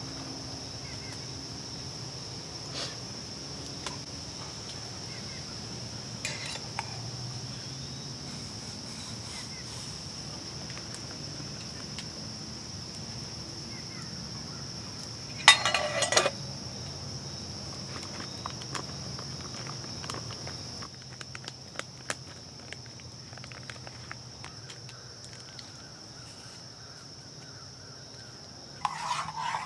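Small metal clinks of a spoon, lid and metal camp cup being handled, with one louder ringing clink about halfway through, over a steady high-pitched insect drone. Near the end, a food pouch rustles as it is poured into the cup.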